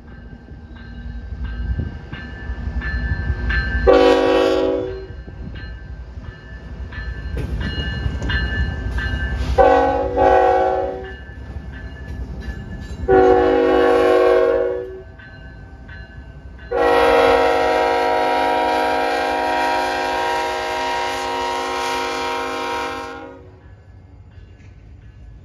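GE ET44AC diesel freight locomotives passing close by with a heavy low rumble, while the locomotive air horn sounds a series of blasts: several shorter blasts, then one long blast of about six seconds that stops a couple of seconds before the end.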